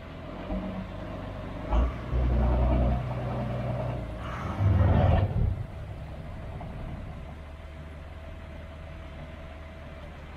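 An engine running steadily at idle, with two louder surges, one about two seconds in and one about five seconds in.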